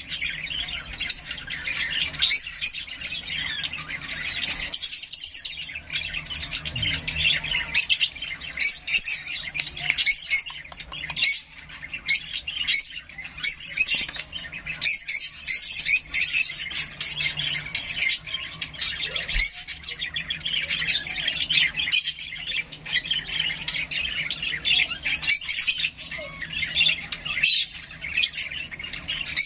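Young hand-fed bird giving rapid, harsh begging calls, chirping and squawking almost without a pause.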